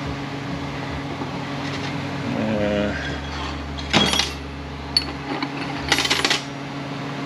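Steady mechanical hum of the shop's fan. Over it come short clicks and rustles of transmission parts and seals handled on a metal bench: a sharp knock about four seconds in and a longer rustle about six seconds in.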